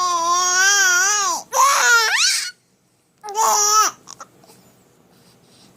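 Baby crying. A long, wavering cry breaks off about one and a half seconds in, a second cry rises in pitch, and after a short pause a brief third cry follows.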